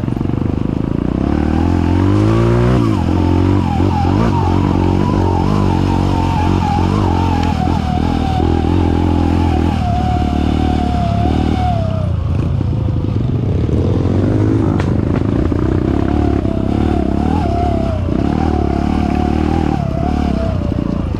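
Kawasaki KLX trail motorcycle engine running under way. It revs up about two seconds in and eases off for a moment around thirteen seconds, with a wavering high whine over the engine note.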